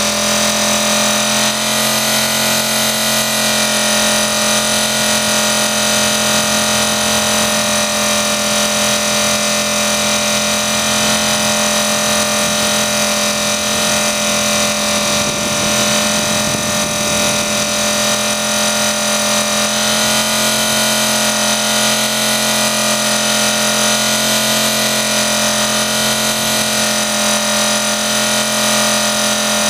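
Blade 400 electric RC helicopter in flight: steady whine of its motor and spinning rotor, its pitch holding nearly constant with slight wavering.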